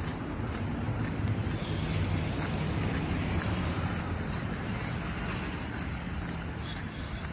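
Road traffic passing on a wet, snow-covered road: car engines humming and tyres hissing through the slush, a little louder in the first few seconds.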